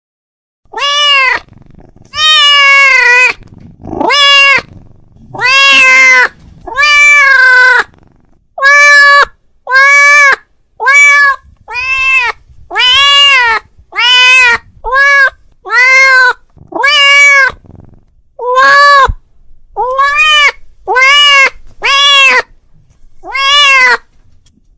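Domestic cat meowing loudly and repeatedly, about twenty meows in a row, each rising then falling in pitch, with short pauses between: a cat calling out to another cat.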